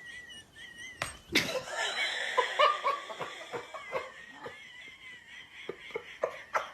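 A person laughing in quick bursts, loudest between about one and a half and three seconds in, over a thin, high, wavering whine.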